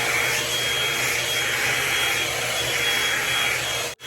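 Revlon One-Step hot-air dryer brush running on a steady airflow: an even rush of air with a thin, high motor whine. It breaks off for an instant near the end, then carries on.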